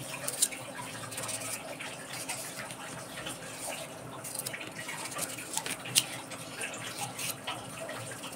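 Knife peeling and slicing a raw radish held in the hand: continual scraping and cutting of the wet, crisp flesh, with scattered sharp clicks, the loudest about six seconds in.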